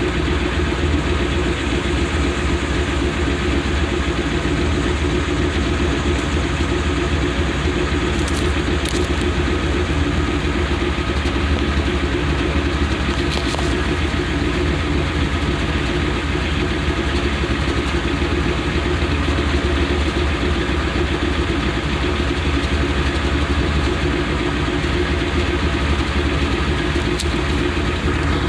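A 2011 Ford Crown Victoria's 4.6-litre V8 idling steadily, heard at the tailpipe. The car has a shaking idle and misfire codes that the owner has been chasing.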